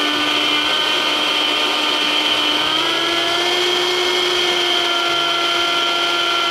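Vitamix E320 Explorian blender's 2.2 horsepower motor running at high speed, blending a strawberry smoothie in the personal cup. It is a steady, way loud whine whose pitch steps up slightly about three seconds in.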